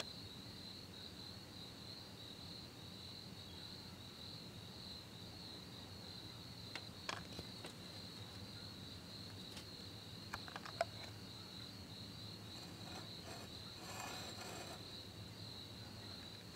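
Crickets chirping in a steady, high-pitched trill, faint throughout, with a few soft clicks now and then.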